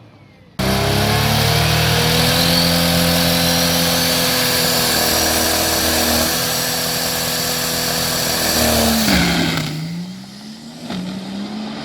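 Vehicle engine held at high revs for about eight seconds, starting suddenly, then dropping back to a lower, uneven speed about nine seconds in.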